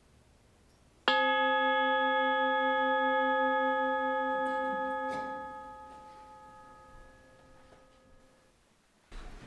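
A small handheld meditation chime struck once about a second in, ringing in several steady tones with a slowly wavering low tone and fading away over several seconds; a light knock about four seconds later cuts off its highest tones.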